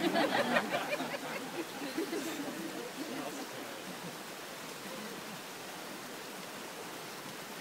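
A short burst of laughter and murmuring from wedding guests at the start, fading within about two seconds into a steady rushing noise.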